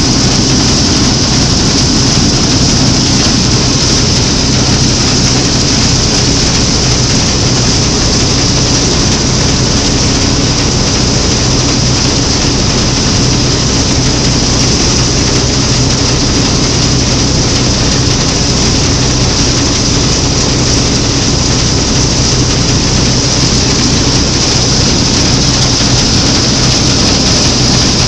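Claas Matador Standard combine harvester running steadily while cutting and threshing triticale, heard from its open operator's platform: an even, unbroken machine noise with a low hum and a high hiss.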